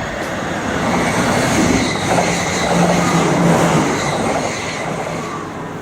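Passenger train running on the line, a steady rumble that swells and then slowly fades.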